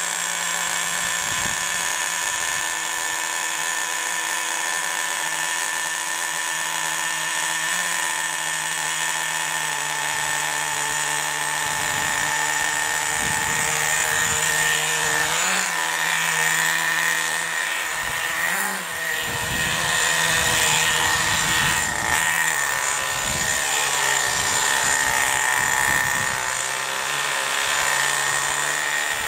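Small two-stroke nitro glow engine of an HPI Bullet MT 3.0 RC monster truck running at a high-pitched whine, its revs rising and wavering now and then as the truck drives about. The carburettor is back at its default settings, so the engine is not tuned for top performance.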